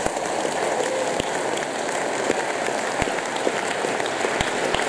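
Large audience applauding steadily, a dense patter of many hands with a few single claps standing out.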